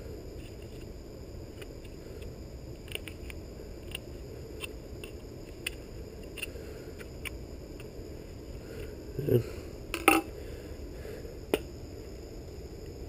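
Motorcycle exhaust parts being handled and fitted: light clicks at intervals over a steady low hum, then three louder knocks and scrapes near the end.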